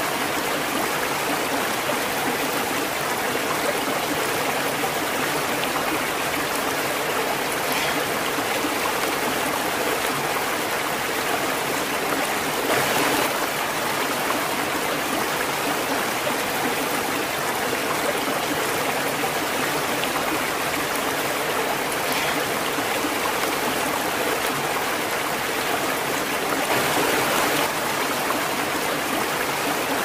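Small stream cascading over a rock into a shallow pool: a steady rush and splash of flowing water, briefly louder twice.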